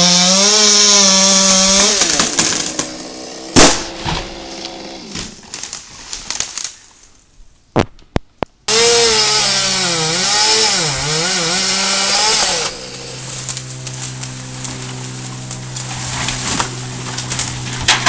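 Chainsaw at high revs with its pitch dipping under load as it cuts, then dropping back to a lower steady run. This happens twice, with a sharp knock a few seconds in and a brief near-quiet gap of about a second in the middle.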